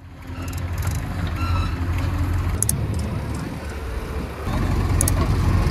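Diesel engine of a JCB 3DX backhoe loader running steadily, with tractor engines alongside. The sound fades in at the start and steps up louder about four and a half seconds in.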